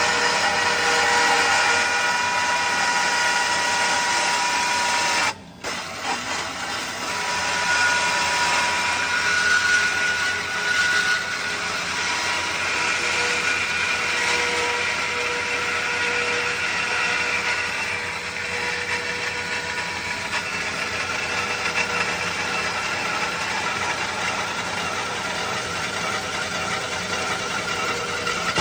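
Electric power tool motor running continuously with a steady whine. It cuts out briefly about five seconds in, then runs again. This is a test run of the tool after its power plug was rewired.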